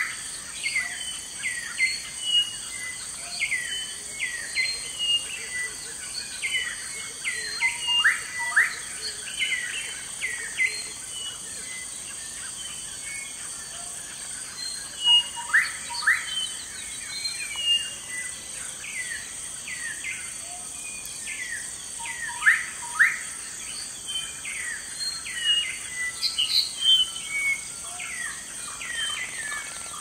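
Rainforest birds calling over and over with short sweeping whistles that come in clusters, with a brief lull about twelve seconds in, over a steady high-pitched insect drone.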